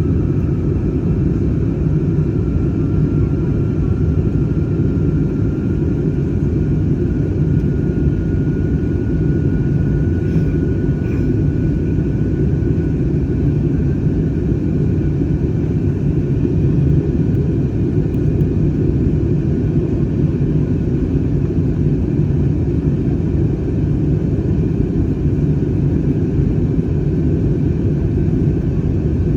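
Jet airliner cabin noise heard from a window seat: a steady, loud low rumble of engines and airflow, with a faint engine whine above it that rises slightly in pitch over the first ten seconds or so.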